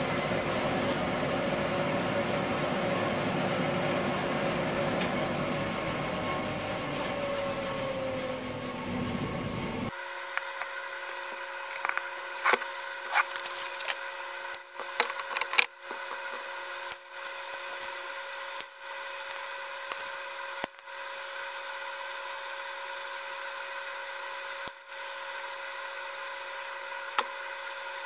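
Band saw cutting a small wooden flower blank for about ten seconds, its tone sinking just before it stops. Then a quieter steady hum with a few sharp clicks and taps.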